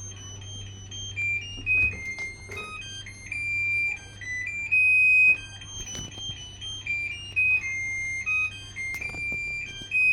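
Sharp washing machine's electronic beeper playing a tune of high, pure notes that step up and down. A low hum dies away about two seconds in, and there are a few faint knocks.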